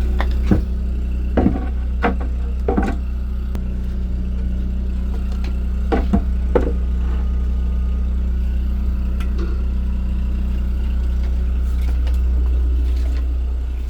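Camper van's onboard generator running with a steady low drone. Several short knocks and clunks in the first seven seconds as the bed-platform pieces are handled.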